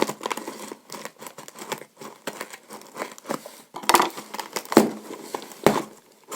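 A mailed package being opened by hand: its wrapping crinkled and torn, with irregular crackling and a few sharper, louder crackles in the second half.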